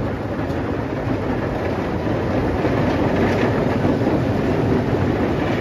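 Steady loud rumble and noise of a vehicle in motion, heard from on board.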